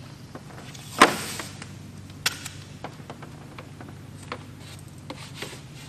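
Hands working a cable and blue tape against a metal aircraft engine cowling: a loud short rasp about a second in, a sharp tap a little after two seconds, and a few lighter clicks and taps, over a steady low hum.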